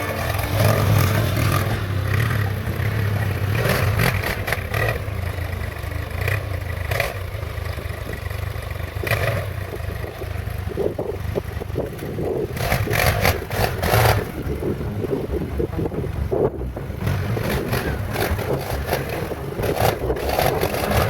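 ATV engine running steadily as the quad rides over rough trail, with irregular knocks, clatter and scraping over it.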